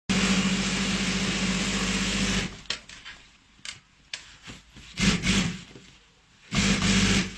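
Industrial three-needle chain-stitch sewing machine with a puller, running steadily at speed for about two and a half seconds, then in two short bursts later on, with small clicks in between.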